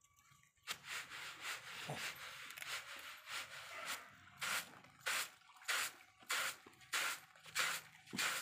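Hands sweeping and scraping dried turmeric across a plastic sack sheet. It starts as a continuous rubbing about a second in, then turns into regular strokes a little more than half a second apart.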